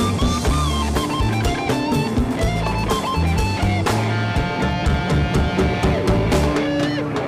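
Background rock music: a lead guitar line with bending notes over bass and drums, with no singing.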